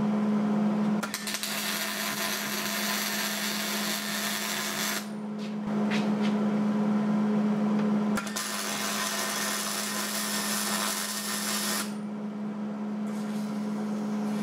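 Wire-feed (MIG) welding arc crackling and hissing in two runs of several seconds, with a short break about five seconds in and another near the end, over a steady hum. These are tack welds holding a loose bearing in place at the end of a hydraulic cylinder.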